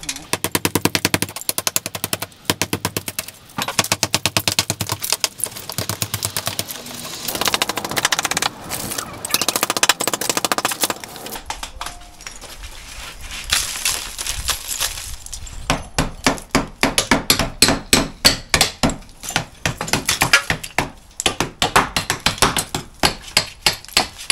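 Electric hammer drill chiselling out brickwork, rapid hammering in bursts. In the middle, bricks and rubble are pulled loose. Near the end come slower, separate blows.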